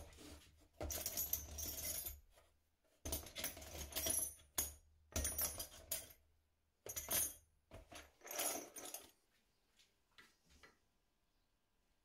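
Steel drill bits rattling and clinking against each other in a plastic tub as hands rummage through them, in several separate bursts that die away about three-quarters of the way through.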